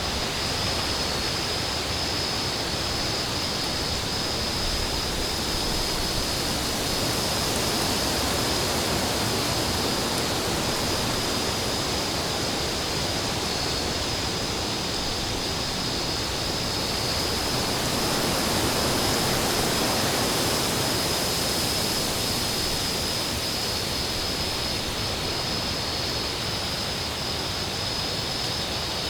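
Wind blowing steadily, a broad rushing noise that swells gently about 8 and again about 19 seconds in, with a thin steady high tone running through it.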